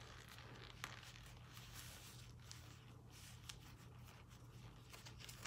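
Near silence: faint room tone with a steady low hum and a few faint rustles and ticks of a necktie being worked through its knot by hand.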